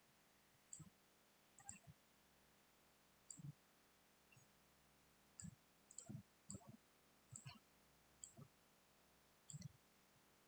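Computer mouse buttons clicking faintly, about a dozen irregular clicks, some in quick pairs like double-clicks.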